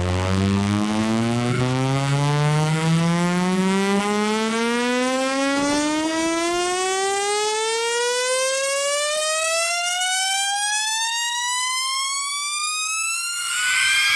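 Synthesized siren-like test tone, rich in overtones, gliding slowly and steadily upward in pitch from a deep bass note to a high one: a speaker sound-check sweep. A brighter, harsher sound comes in just before the end.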